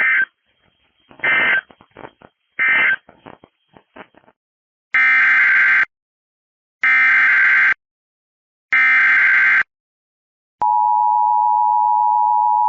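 Emergency Alert System data bursts and attention signal. First come three short, buzzy end-of-message bursts about 1.4 s apart. Then three louder SAME header bursts, each about a second long and about two seconds apart, announce the next alert. About ten seconds in, the steady two-tone EAS attention signal starts and holds.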